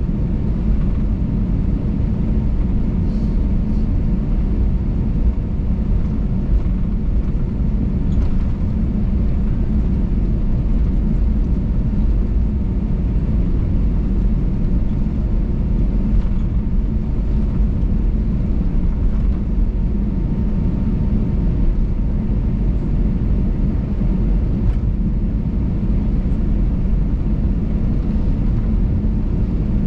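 Airbus A320 cabin noise while taxiing: a steady low rumble from the engines at low power and the aircraft rolling on the ground, with a faint steady tone and a few light ticks.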